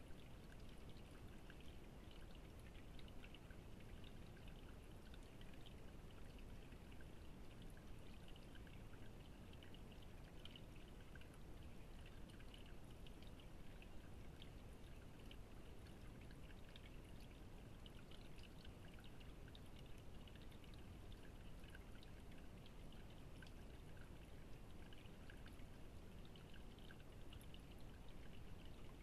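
Faint, steady trickling of a small garden water feature running into its bowl.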